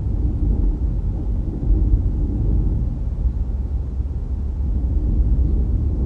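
Steady low rumble of a car driving along a road: road and wind noise, fluctuating a little in level and growing louder right at the end.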